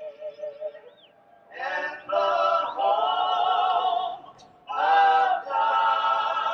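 Slow vocal music: singing voices holding long, wavering notes in phrases, with short breaks about one second and four and a half seconds in.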